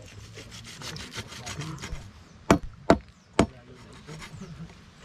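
A bolo knife cutting beef shank on a bamboo log: quick scraping back-and-forth strokes, about seven a second, for the first two seconds, then three sharp chops a little after the halfway point.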